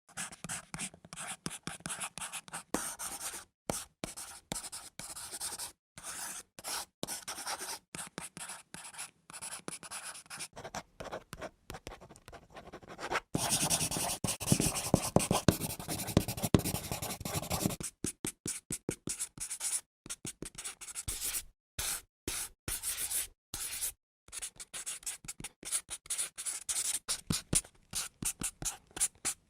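Pencil lead scratching across paper in short strokes with brief pauses between them, with a louder, continuous stretch of scratching in the middle.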